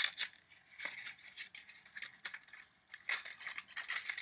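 Paper flaps being folded down along score lines: several short crisp bursts of creasing and rustling paper.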